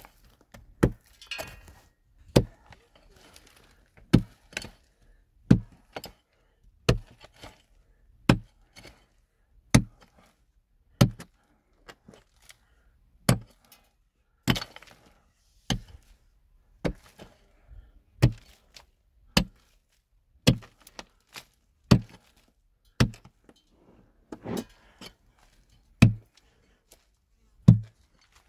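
A heavy hand tool struck again and again in a steady rhythm, about one blow every second and a quarter, each a sharp hit with a dull thud.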